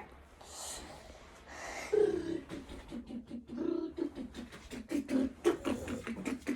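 A child's voice making short, rhythmic mouth noises, several a second, beginning about two seconds in, after a brief hiss.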